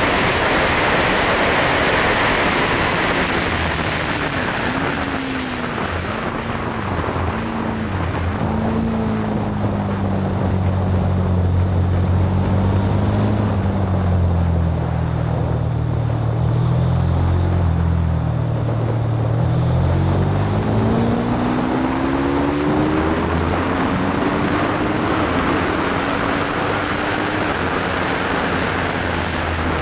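Aprilia Tuono V4's V4 engine at speed, heard from an onboard camera under heavy wind noise on the microphone. Its note rises and drops briefly a few times, sinks slowly for several seconds, then climbs steeply as the bike accelerates, with more short rises near the end.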